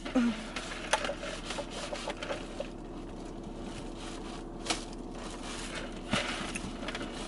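Faint rubbing, rustling and small clicks of someone handling food and a paper fountain-drink cup, sipping through the straw partway through, over a faint steady hum.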